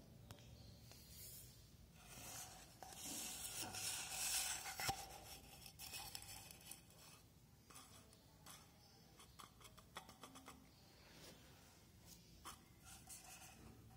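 Faint handling noise: rustling and scraping with light taps and clicks, louder for a few seconds near the start, then only scattered small clicks.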